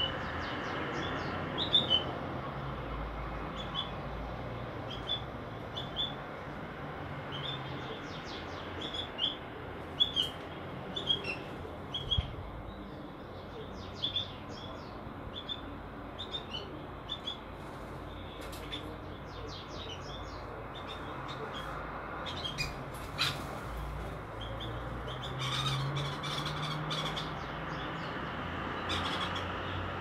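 Sparrows chirping: short, high chirps repeated again and again over a steady background noise, busiest in the first half.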